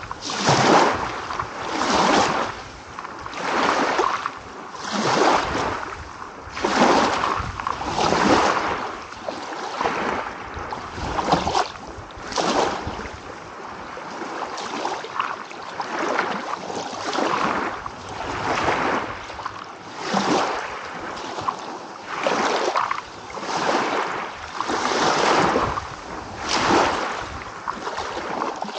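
Small waves lapping and washing one after another, a rush of water swelling and fading every second or two.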